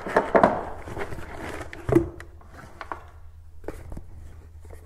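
Cardboard shipping box and packaging rustling and scraping as a boxed part is lifted out, with a knock about two seconds in and small handling clicks.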